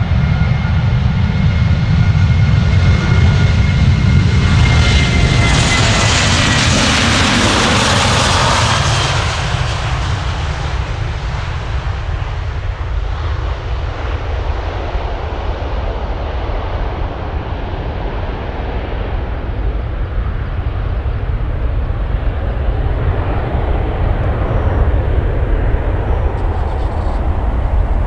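Boeing 737-800's CFM56-7B turbofan engines at takeoff thrust: a steady fan whine during the takeoff roll that drops slightly in pitch as the jet passes about six seconds in, then a full roar that fades into a low rumble as the aircraft climbs away.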